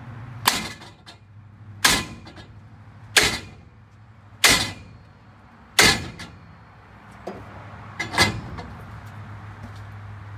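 A maul striking the end of a steel conduit run through a GM 10-bolt rear axle tube to drive out a seized axle bearing race: six heavy metallic blows roughly every second and a half, each with a short ring, and a lighter knock shortly before the last.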